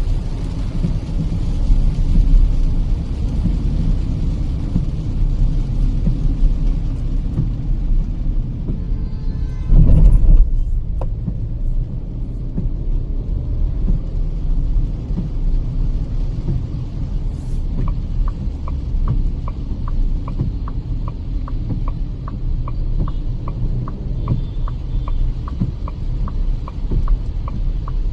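Steady low rumble of engine and tyre noise heard inside the cabin of a Kia Seltos petrol manual driving on a wet highway. There is a single heavy thump about ten seconds in, and from about eighteen seconds a light, regular ticking about twice a second.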